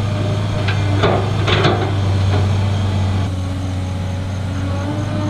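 Large excavator's diesel engine running steadily at low revs, with a few knocks and scrapes about a second in, typical of the bucket working in the ditch.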